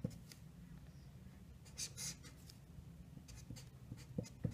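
Sharpie marker writing on paper: faint, short scratchy strokes as letters and symbols are drawn, with a few light knocks near the end.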